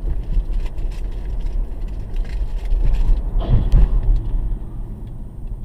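Car driving, heard from inside the cabin: a steady low rumble of road and engine noise, with a louder swell of noise about three and a half seconds in.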